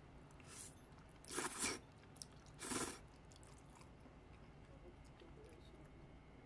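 Close-up eating sounds: two short crunchy bursts about a second apart, with chewing.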